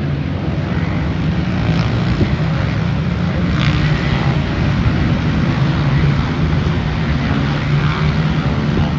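A loud engine running steadily at an even pitch.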